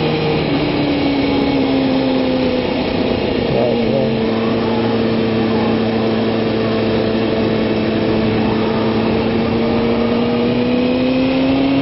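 Kawasaki ZX-6R sportbike's inline-four engine running at steady revs under rushing wind noise on an onboard microphone. The engine note steps down about three seconds in and climbs slowly near the end.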